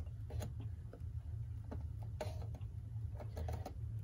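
Irregular small clicks and scrapes of a hand tool prying up the bent-over tabs that hold a mantle clock's rim, over a steady low hum.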